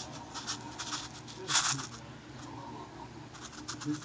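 Clear plastic cups being handled: light scraping and tapping, with a brief louder rustle about one and a half seconds in.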